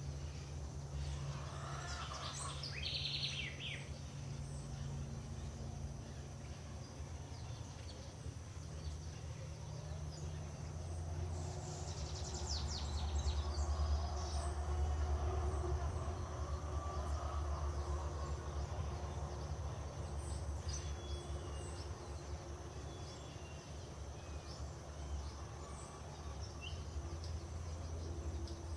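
Outdoor ambience: a steady low rumble that swells in the middle, a constant high-pitched whine, and a few short bird chirps about two to three seconds in, again around twelve seconds, and faintly around twenty seconds.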